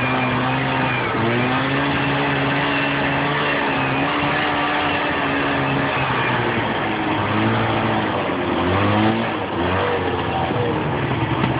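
Snowmobile engine running on the trail, its note mostly steady with a brief drop in pitch about a second in and several drops and rises in pitch later on as the throttle is eased and opened again, over a steady rush of noise.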